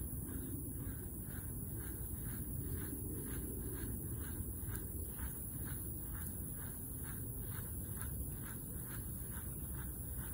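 An animal calling in a steady, even series of short chirp-like pulses, about three a second, over low steady background noise.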